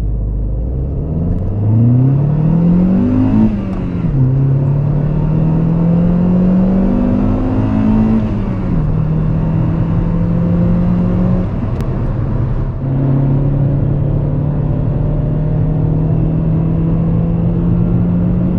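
Honda Civic Si (EP3) four-cylinder engine heard from inside the cabin, accelerating through the gears. The engine note climbs and drops at an upshift about three and a half seconds in, then climbs again and drops at a second upshift about eight seconds in. After that it holds a steady note over road rumble, with a brief dip around twelve to thirteen seconds in.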